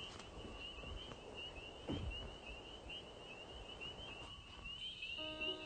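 Crickets chirping in a steady, rapidly pulsing high trill, with a soft thump about two seconds in and music starting near the end.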